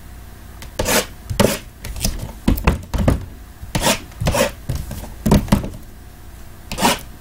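Shrink-wrapped trading-card boxes being handled and restacked: about a dozen irregular knocks and scrapes as boxes are set down on and slid against each other, starting about a second in.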